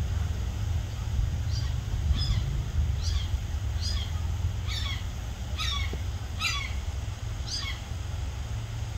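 A bird calling: a series of about eight short, high chirps, each falling in pitch, a little under a second apart, over a steady low rumble.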